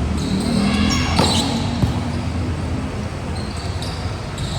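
Ball game on an indoor court: a ball struck and bouncing a couple of times over a steady hubbub of players and onlookers.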